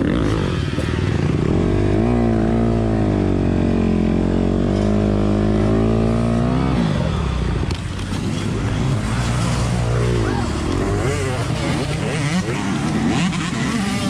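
Honda CRF250RX four-stroke single-cylinder dirt bike engine held at a steady, slightly wavering note for several seconds, then dropping off abruptly and revving up and down unevenly in short bursts while the bike is worked up a steep, loose slope.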